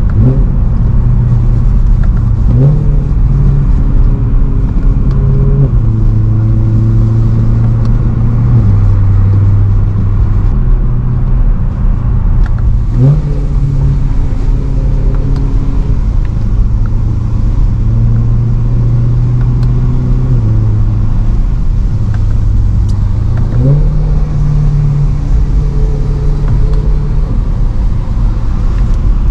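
BMW M3 E92's V8 engine pulling through the gears. Three times the revs climb quickly, then fall away in steps as it shifts up, with a steady low engine note in between.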